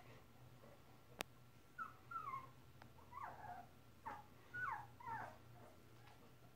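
Young puppies whimpering faintly: a series of short, high squeaks, each falling in pitch, bunched together over a few seconds, with a single sharp click about a second in.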